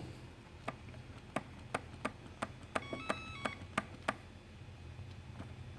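Hoverboard foot-pad trigger being pressed repeatedly, a run of small sharp clicks about three a second, with a short stepped electronic beep from the board about three seconds in. The pad gets no response: its trigger is faulty, which the owner blames for the board's shaking.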